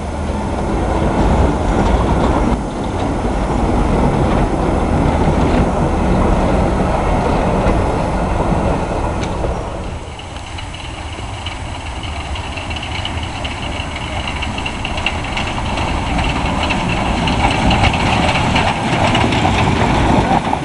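Steam-hauled train rolling along the track, a steady rumble of wheels and carriages. About halfway through the sound changes to a lighter running noise with a high hiss over it.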